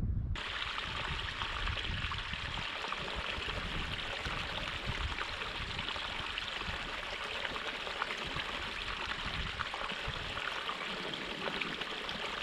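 Flowing water, a steady even rush like a small stream, cutting in suddenly at the very start.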